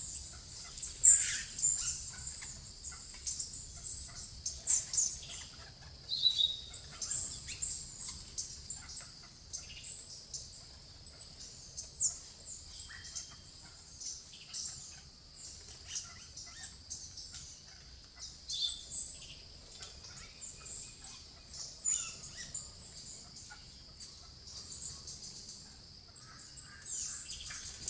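Plain parakeets (Brotogeris tirica) giving short, shrill, high-pitched chirps, scattered irregularly throughout, over a steady high background hiss.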